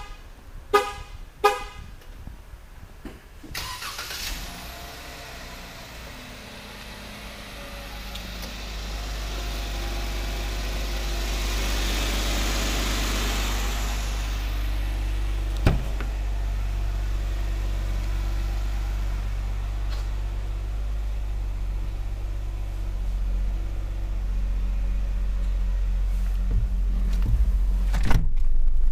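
A 2015 Jeep Wrangler's horn toots twice in quick succession about a second in. A few seconds later its 3.6-litre V6 starts and settles into a steady low idle. There is a single sharp click about halfway through and a thump near the end.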